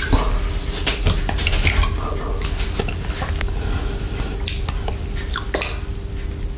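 Chocolate lollipop stirred and dipped in a small glass bowl of whipped cream close to the microphone: wet squishing with repeated small clicks of the lollipop against the glass. Licking follows near the end.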